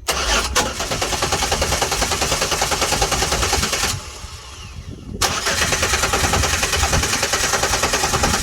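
2006 Chevrolet Impala engine cranking on the starter without catching, in two attempts with a short pause between. The engine will not fire on fuel alone even though fuel pressure reaches the rail.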